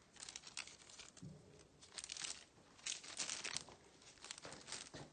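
Faint, irregular crinkling and rustling noises in short scattered bursts, with no voice.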